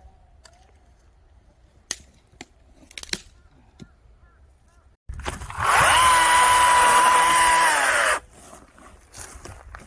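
Electric chainsaw whirring up to speed about halfway through, running with a steady high whine for about three seconds, then winding down and stopping. Before it, a few light knocks.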